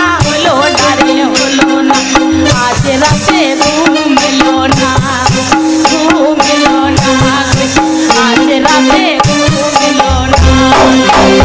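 Bengali folk dance music: a two-headed barrel drum played by hand, its low strokes bending in pitch, over a steady melodic accompaniment and rattling percussion. The bass drum strokes get heavier near the end.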